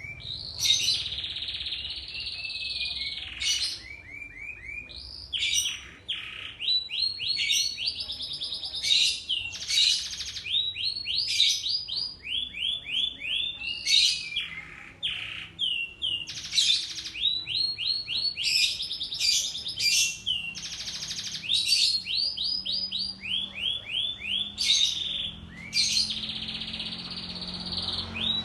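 Domestic canary singing a long, unbroken song. Fast rolling trills of repeated sweeping notes alternate with short, sharp, very high notes.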